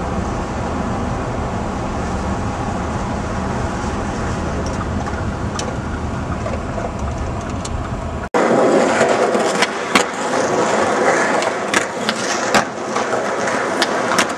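A steady low rumble, then, after a sudden cut about eight seconds in, skateboard wheels rolling on concrete with several sharp clacks of the board striking the ground.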